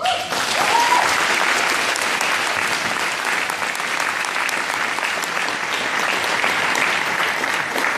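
Audience applauding steadily after a speech, with a short rising whoop near the start.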